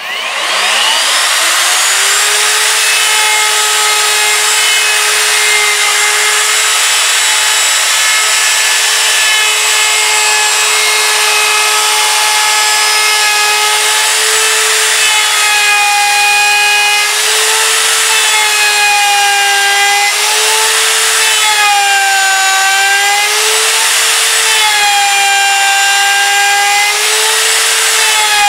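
Router with a top-bearing pattern bit spinning up as it is switched on, then running at a steady high whine while it routes a tile recess in maple along a plywood template. From about halfway its pitch dips again and again as the bit takes load in the wood.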